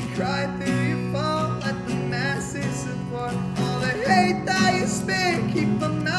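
Two acoustic guitars playing a song together: a picked melody over sustained chords.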